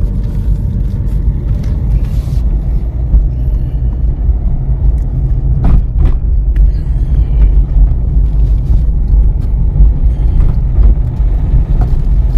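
Car engine and road noise heard from inside the cabin while driving: a steady low rumble, with a few light clicks and knocks, the clearest about six seconds in.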